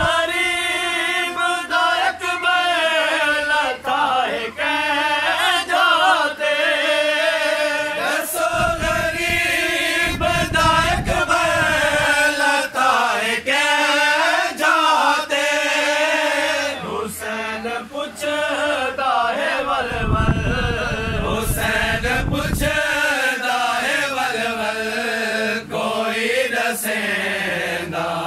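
Several men singing a noha, a Shia lament for Imam Husain, in a chanted melody, one voice leading and others joining in. Scattered sharp knocks run through the singing.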